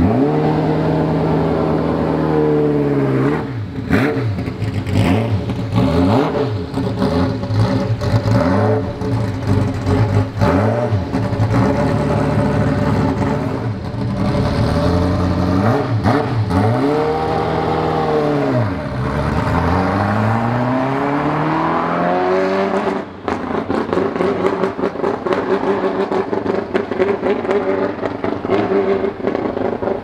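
Ferrari F40 LM's twin-turbo V8 revved hard again and again, the engine note climbing and dropping in quick blips. After about 23 seconds it runs steadier at a fairly constant pitch as the car drives on.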